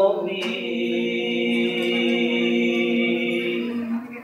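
Male voices of an Al-Banjari sholawat group holding one long sung note at a steady pitch, ending just before the end. A single sharp knock sounds about half a second in.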